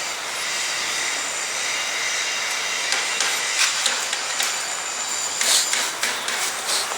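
Petrol burning on an engine: a steady hissing rush of flame with a few crackles in the second half.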